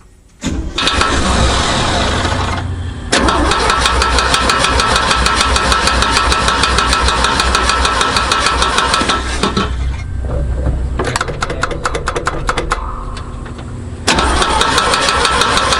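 The Chevy C60 truck's gasoline engine starts about half a second in on its freshly rebuilt carburetor and runs, its revs rising and falling several times. A fast, even metallic rattle runs through it, which turns out to be the fan guard and the air breather touching the radiator.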